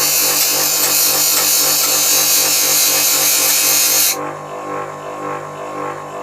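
Grinder wheel grinding the side of a steel flat-blade screwdriver tip: a loud, high hiss over the steady hum of the grinder motor. About four seconds in the blade comes off the wheel and the hiss stops suddenly, leaving the grinder motor running on its own.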